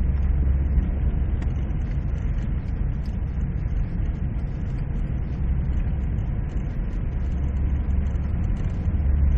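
Steady low engine and road rumble heard from inside a four-wheel-drive vehicle driving through snow. It swells a little near the end.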